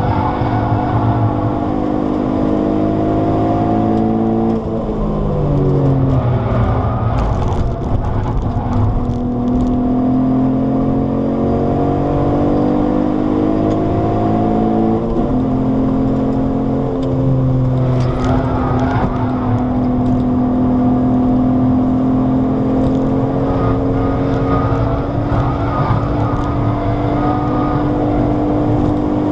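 Alfa Romeo 156's Busso V6 heard from inside the cabin under hard driving. The revs climb, fall sharply about four to five seconds in, and climb again for about ten seconds. An upshift about fifteen seconds in is followed by a long, slowly rising pull.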